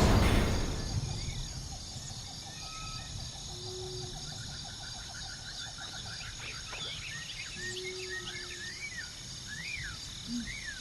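Forest ambience of a steady insect drone with scattered bird chirps and a quick repeated trill, after a loud engine-like rush fades out over the first second or two.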